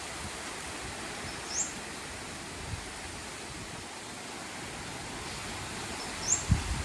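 Strong wind blowing in a steady rush, with low gusts buffeting the microphone near the end. Two brief high rising chirps sound over it, about a second and a half in and near the end.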